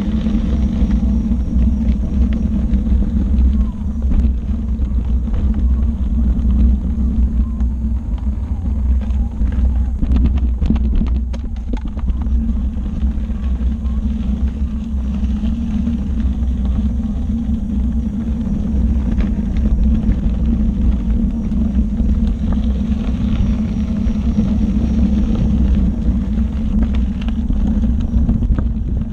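Steady low rumble of a Gotway ACM16 electric unicycle being ridden over a rough dirt and gravel trail, with wind buffeting the microphone. A run of clicks and rattles comes about ten seconds in.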